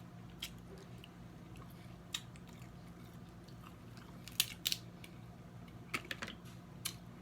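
Snow crab leg shells cracking and crunching while being eaten, with chewing: a string of short, sharp cracks and clicks a second or two apart, a few of them in quick pairs, over a faint steady low hum.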